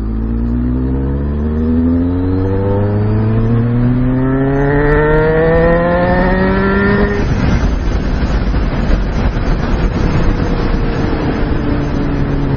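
2006 Kawasaki ZX-6R 636's inline-four engine accelerating hard, its pitch rising in one long climb for about seven seconds. Then the engine note drops away under a loud rushing noise, and the engine pitch falls as the bike slows.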